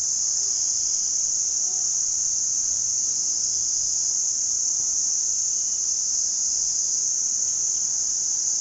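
Steady, loud chorus of insects, a continuous high-pitched buzz that does not change.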